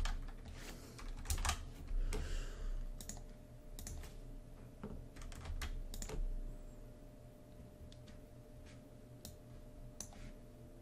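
Typing on a computer keyboard: scattered key clicks, close together in the first few seconds and thinning to occasional single clicks in the second half.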